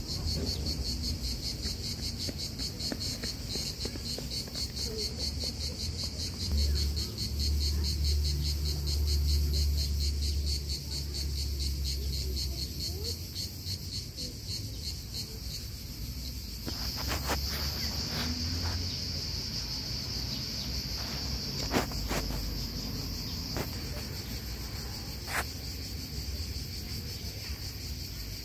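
Insects trilling steadily in a high, rapidly pulsing band, under a low rumble. A few sharp clicks come in the second half, in time with the cat chewing and licking its food.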